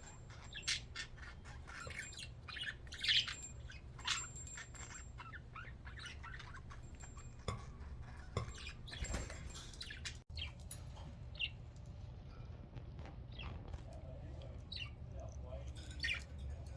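Budgerigars chattering: a flock of pet budgies giving scattered short chirps and squawks, louder around three seconds in and again near the end, over a steady low hum.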